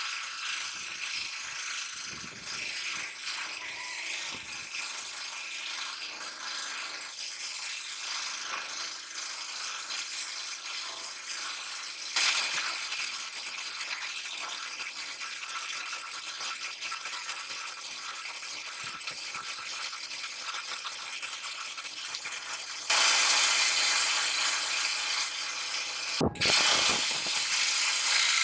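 Homemade metal-framed scroll saw running, its blade rattling steadily as it cuts through wood. The sound becomes abruptly louder about 23 seconds in and breaks off for an instant a few seconds later.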